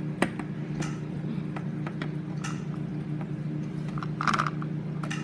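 Small plastic toy figurines being handled, giving scattered light clicks and taps of plastic, with a sharp click just after the start and a brief higher-pitched sound about four seconds in. A steady low hum runs underneath.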